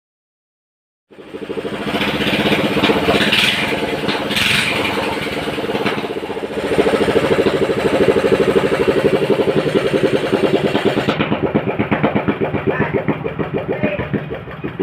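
A small ketinting boat engine running with a fast throbbing beat, starting about a second in and rising and falling in level as it is revved.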